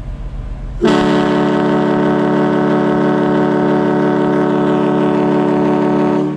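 Riverboat's departure signal: one long, very loud blast on its horn, a steady chord of several tones that starts about a second in and cuts off sharply near the end.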